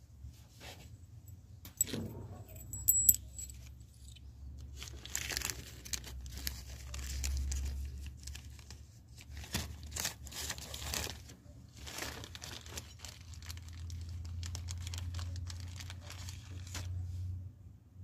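Small metal parts and tools being handled on a workbench: scattered clinks, rattles and rustling. There are a few sharp clicks about two to three seconds in.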